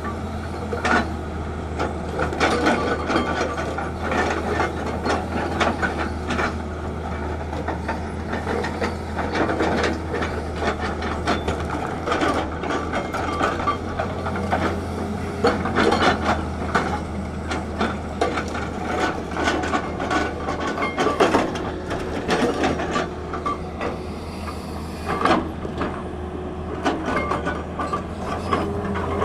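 Hydraulic rock breaker on a Tata Hitachi excavator hammering rock in a rapid, uneven clatter of blows, over the steady drone of the excavator's diesel engine.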